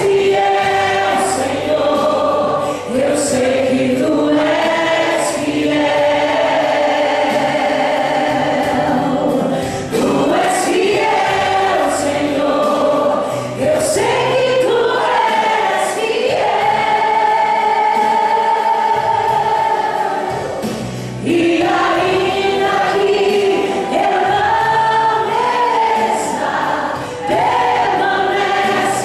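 Church choir singing a gospel hymn in long held phrases, with short breaks between phrases every few seconds.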